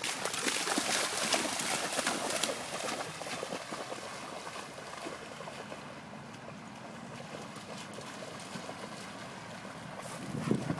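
Splashing and scuffling of dogs running through muddy puddles, dense and loudest for the first few seconds, then quieter.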